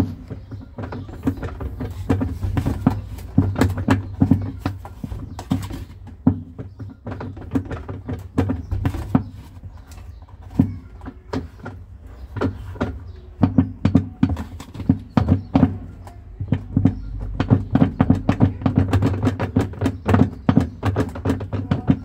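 Top-loading washing machine spin tub turned by hand, with rapid, irregular clicking and knocking from its plastic tub and drive over a steady low hum.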